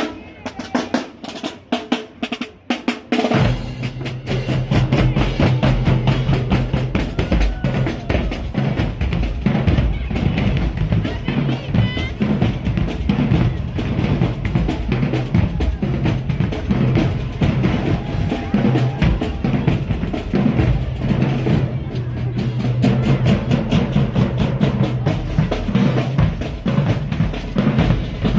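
High school marching band drumline playing a cadence: sharp snare strikes at first, then the bass drums and full battery come in about three seconds in with a dense, driving rhythm.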